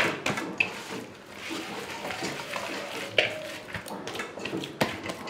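Hands kneading soft, oiled maida dough in a stainless steel bowl: wet squishing and slapping of the dough, with a few sharper knocks against the bowl.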